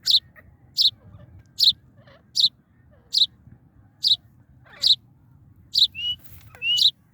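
A partridge giving short, sharp, high calls in a steady series, about one every 0.8 seconds. Two brief rising whistle notes come near the end.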